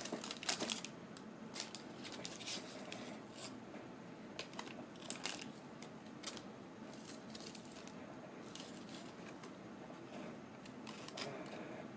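Paper food wrapper crinkling and rustling as it is handled, densest in the first second, then scattered soft clicks and crackles.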